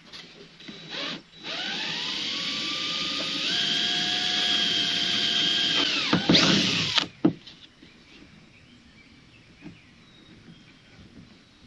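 Cordless drill boring a hole through a plastic kayak deck. The motor whine rises as it spins up, holds steady for a few seconds, then winds down and stops about seven seconds in.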